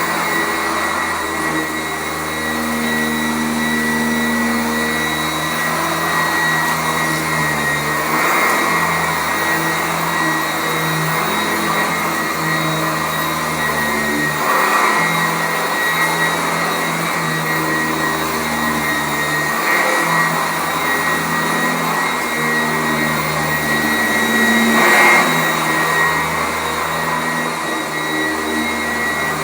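Sanitaire SC899 commercial shake-out-bag upright vacuum cleaner running steadily on carpet, a constant high whine over its motor noise, with a few brief swells.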